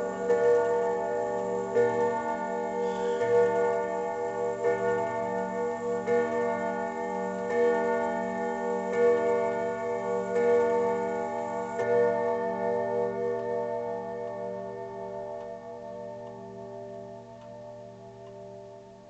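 Sligh triple-chime clock striking the hour on its chime rods: about nine evenly spaced, ringing strokes roughly a second and a half apart, the last about twelve seconds in, then the tone slowly dies away. The clock's ticking runs underneath.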